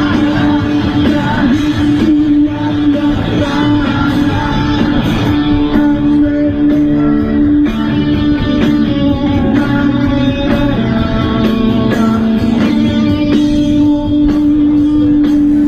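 Rock song playing, with a singing voice over guitar.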